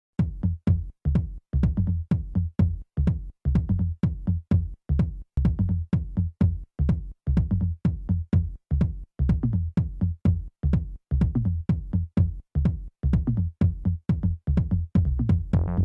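Electronic background music with a steady, bass-heavy beat of short, sharply cut pulses, about two to three a second.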